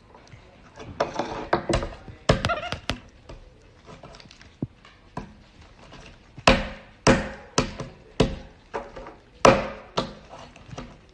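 Pink plastic cups knocked and set down on a wooden floor by a capuchin monkey handling them: a series of about a dozen sharp knocks, the loudest between about six and ten seconds in.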